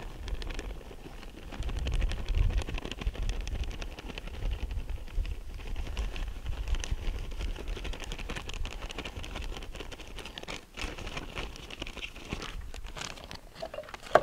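Chopped walnut pieces sprinkled by hand, pattering as many small irregular ticks onto dry cake mix in a cast iron Dutch oven, over a low rumble that is strongest about two seconds in.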